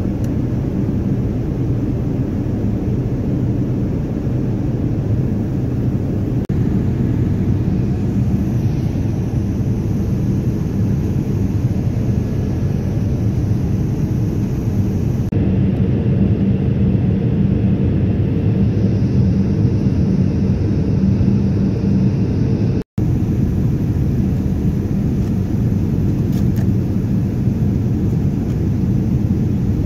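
Steady in-flight cabin noise of a Boeing 787 airliner: a constant low rumble of engines and airflow with a low hum, dropping out for an instant about two-thirds of the way through.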